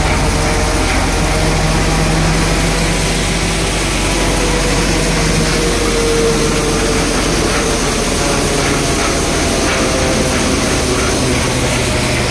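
Double Sher thresher running steadily under load, threshing freshly cut, still-wet moong (green gram): a loud, even mechanical din over a constant low hum.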